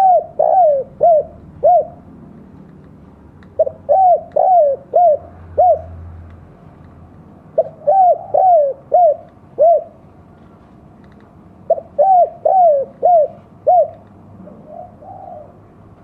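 Spotted dove (tekukur) cooing in the 'kuk dua' style: a phrase of about five notes, a short one, two longer coos, then two short closing notes, repeated about every four seconds. A faint softer call follows near the end.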